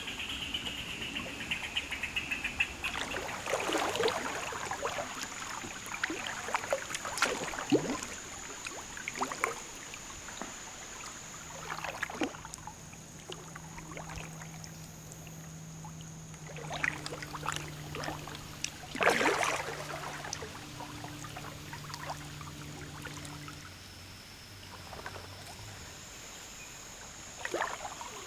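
Kayak paddle dipping into the river, a handful of irregular splashing strokes over the gentle wash of flowing water, with the loudest stroke a little past the middle. A faint low hum runs through the middle stretch.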